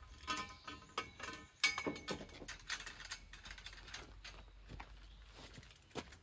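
Scattered metallic clicks and clinks of steel scaffolding pipes and their clamp fittings being handled and tightened, with a sharp knock a little under two seconds in.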